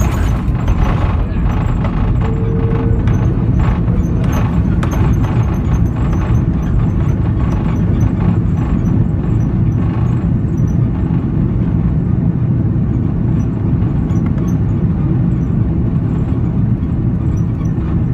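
Airbus A330-200 landing rollout heard from the cabin: a loud, steady rumble of engines and wheels on the runway, with the thrust reversers deployed. A sharp jolt comes right at the start, and more knocks follow over the first few seconds.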